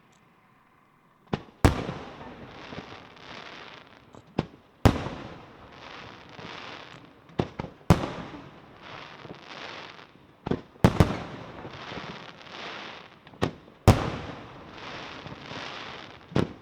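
Fireworks display: aerial shells going off as sharp bangs in close pairs about every three seconds, each pair followed by a few seconds of dense, pulsing hiss. The first second is quiet before the bangs begin.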